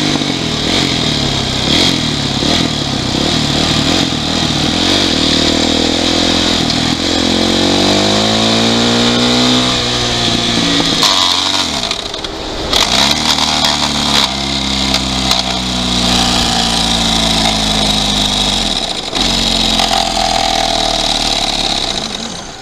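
Yamaha YZ450F single-cylinder four-stroke dirt bike engine running under load, revving up and falling back through several gear changes. Near the end the engine note drops away sharply.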